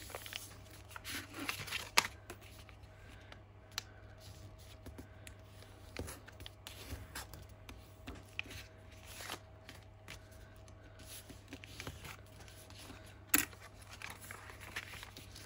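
Brown kraft paper being folded and handled on a cutting mat: soft rustling and scraping as the fold is pressed and smoothed with a bone folder. There are two sharp taps, about two seconds in and near the end.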